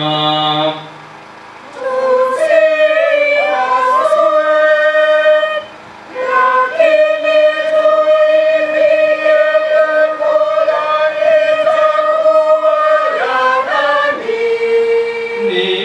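A choir singing a slow phrase in long held notes, with a short break about five and a half seconds in. Near the end, a lower-pitched chanted line of the Passion reading takes over.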